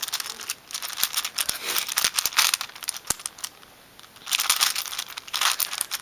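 Plastic layers of a 5x5 Rubik's cube being turned by hand in quick succession: a dense run of clicks and scrapes, with a short pause about two thirds in.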